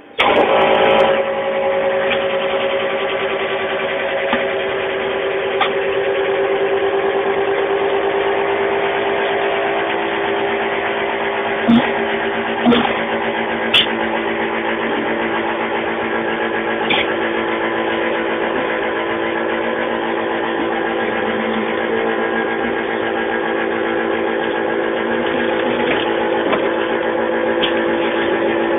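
An electric kitchen machine's motor switches on and runs steadily with a constant multi-tone hum, with a few short clicks and knocks about twelve to fourteen seconds in.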